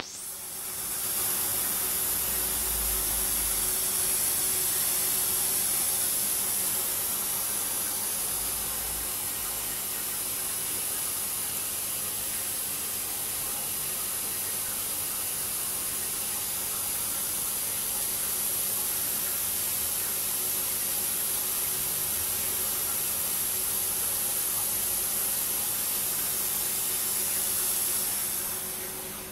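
Terrarium misting system spraying through its nozzles: a steady high hiss of fine water mist that starts suddenly and dies away near the end.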